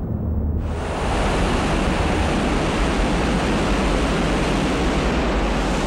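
Steady rushing roar of a missile's rocket motor, starting suddenly about half a second in.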